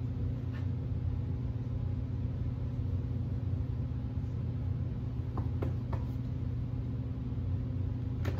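A steady low mechanical hum, with a few faint clicks a little past the middle.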